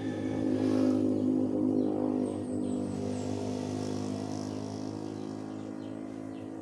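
A small engine running steadily at a constant pitch, slowly fading.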